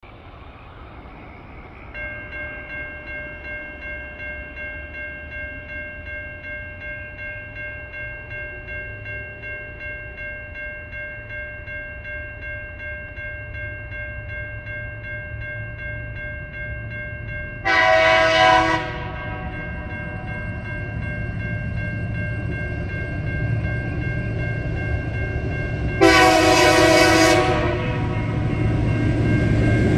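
Level crossing warning bell starts ringing about two seconds in and keeps up a steady, evenly pulsing ring. A TasRail TR-class diesel locomotive sounds its horn twice, a blast of about a second and then one of about a second and a half. Its engine rumble grows louder near the end as it nears the crossing.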